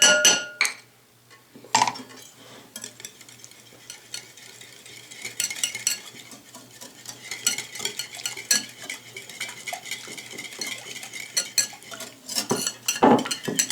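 A metal whisk beating a liquid marinade: a fast, steady run of small clicks that grows busier after a few seconds. It opens with a short ringing clink.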